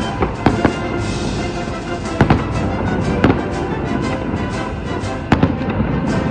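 Fireworks bursting in sharp bangs, about six of them, some in quick pairs, over continuous music with sustained notes.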